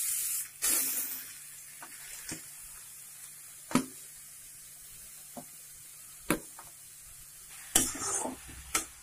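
Grated carrot going into hot ghee in a steel kadai and being stirred: a sizzle, loudest as the carrot goes in, then faint, with a few sharp metal clinks against the pan.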